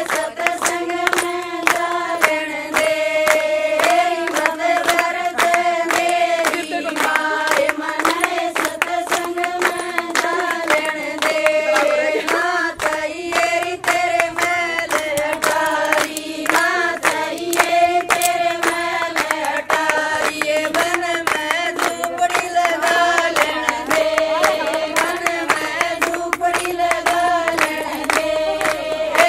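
Women singing a Haryanvi folk song together, with no instruments, to a steady beat of many hands clapping.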